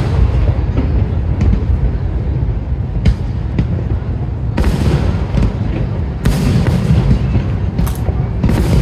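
Aerial fireworks display going off in a dense barrage: a continuous low rumble of booms, with sharp cracks and crackling bursts several times over, thickest in the second half.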